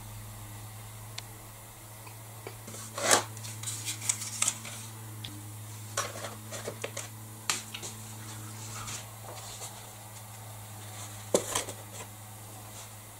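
Plastic clicking and clattering as the clear plastic trays of a homemade plastic-pipe sandpaper holder are handled and its cap is set on top: scattered sharp clicks in small clusters, the loudest about three seconds in and another near the end, over a steady low hum.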